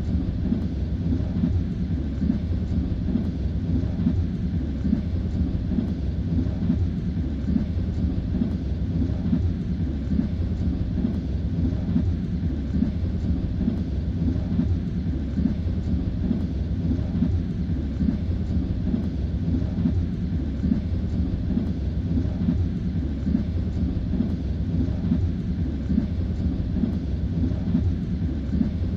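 Passenger train running at speed, heard from inside the carriage: a steady low rumble with the clacking of the wheels over the rail joints.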